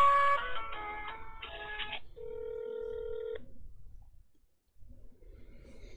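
Hold music heard over a telephone speakerphone, thin and cut off in the treble, stopping about two seconds in. A steady telephone ringback tone then rings once for about a second as the call is put through to a representative, followed by a brief silence and faint line hiss.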